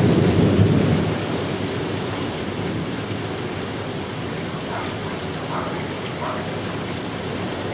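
Steady rain falling during a thunderstorm, with a low rumble of thunder that dies away about a second in.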